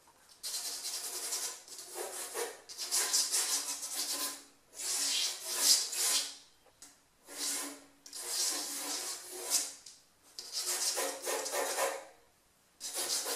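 Graphite pencil scratching across drawing paper taped to a board, in strokes of one to two seconds with short pauses between them.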